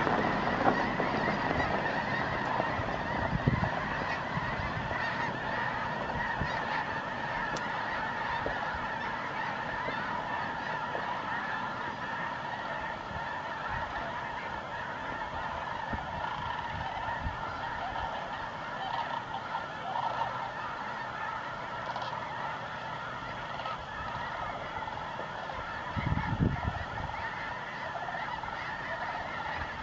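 A huge flock of snow geese calling together, a dense steady chorus of overlapping honks. A brief low thump comes near the end.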